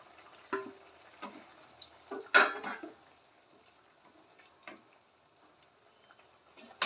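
Spatula scraping and knocking against a metal plate and kadhai as fried taro pieces are pushed into gravy and stirred: a few short clinks and scrapes, the loudest about two and a half seconds in, then near silence.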